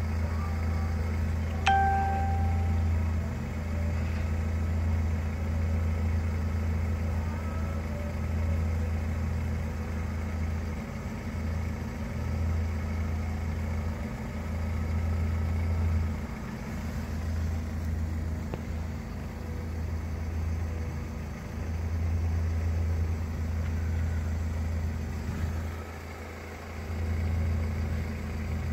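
BMW E46 3 Series saloon's engine idling, a steady low hum that eases briefly near the end. A short high beep sounds about two seconds in.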